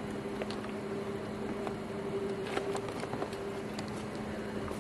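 A steady low electrical-sounding hum with a second, higher hum tone above it, and faint scattered clicks and rustles.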